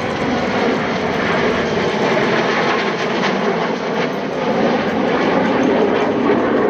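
Jet engines of a CF-18 Hornet fighter and a CC-150 Polaris tanker flying past together: a loud, steady rushing roar that swells a little in the second half.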